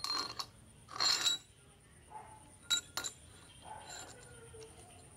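Steel parts of a lathe spindle clinking and scraping as a tapered roller bearing is slid along the shaft by hand. There is a knock at the start, a longer scrape about a second in, and two sharp clinks a little under three seconds in.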